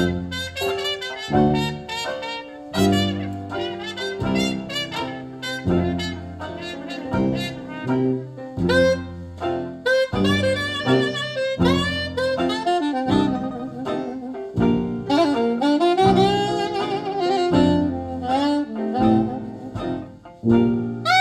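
Jazz music with a saxophone taking the lead over brass and a steady run of low bass notes; the lead line wavers in pitch on its held notes.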